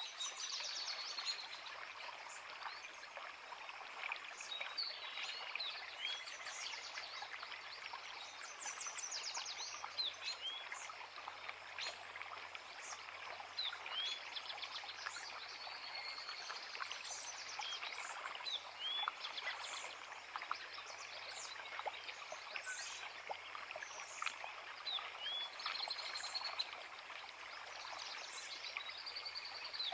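A creek running steadily, with several songbirds singing over it: repeated short rising chirps and quick trills, scattered throughout.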